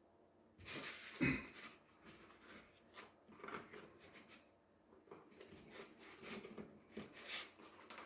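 Faint, irregular rubbing and light clicks of handling, with the loudest knock about a second in.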